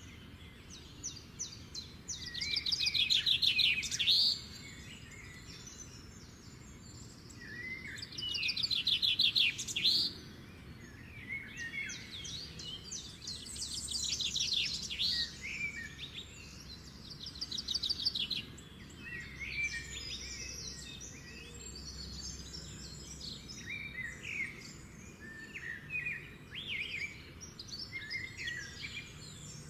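Small pet birds chirping and chattering in shrill bursts, with several fast trilling runs of a second or two each, loudest about three, nine, fourteen and eighteen seconds in.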